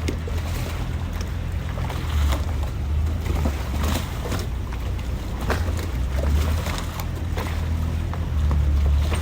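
Canal water lapping and slapping against the hulls of moored gondolas, in irregular splashes and knocks. A low steady hum runs underneath.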